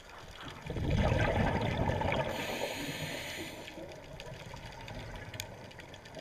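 Underwater water noise picked up by the camera: a muffled, rushing wash that swells about a second in and eases off, with a brief hiss around the middle.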